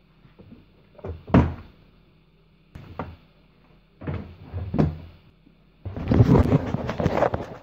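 Jumper cable clamps and cable being handled on a wooden workbench: a few separate knocks and clunks, then about a second and a half of continuous clattering and rubbing near the end.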